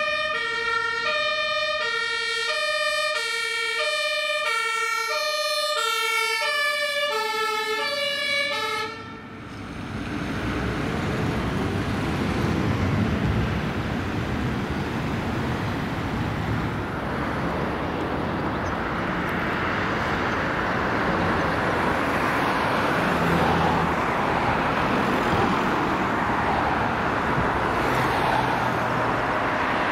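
Two-tone German fire brigade siren (Martinshorn) on a Mercedes-Benz Sprinter fire service van, alternating steadily between a low and a high note, each held a little over half a second; it cuts off about nine seconds in. After that, steady road traffic noise with heavy truck engines.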